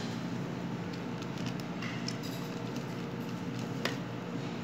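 Steady low hum of room noise in a kitchen, with a few faint, short clicks and taps; one sharper click near the end.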